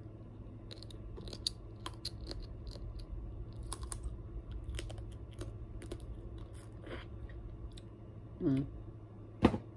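Close-up eating sounds: snow crab leg shell crackling and clicking as the meat is picked out and chewed, a run of quick small cracks and mouth clicks. A brief hum and one sharp click come near the end.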